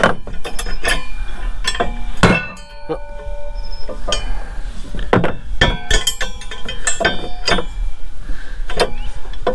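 Steel parts of a wheel hoe clinking and knocking as they are handled while a wheel and its dust cap are refitted. There are about a dozen irregular metallic knocks, some with a short ring after them, and the loudest is about two seconds in.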